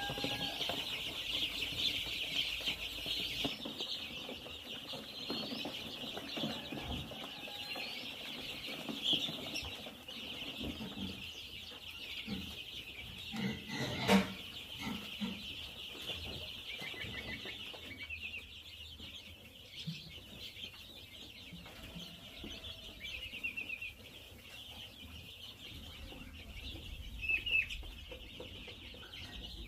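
A large flock of young chicks peeping in a dense, constant chorus, thinning out in the second half. One sharp knock sounds about halfway through.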